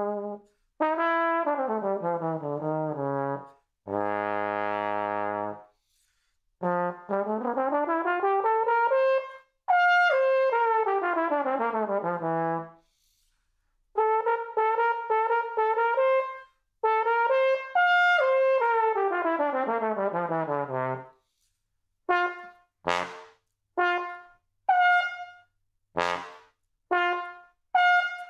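Solo tenor trombone played on a Denis Wick 5 mouthpiece: slurred runs sweeping down and up, with one long low note about four seconds in. Near the end it switches to a string of short, separated notes.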